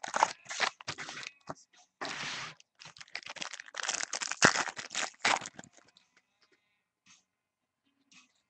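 Foil trading-card pack wrapper crinkling and tearing open by hand in dense bursts for about five seconds, then near quiet.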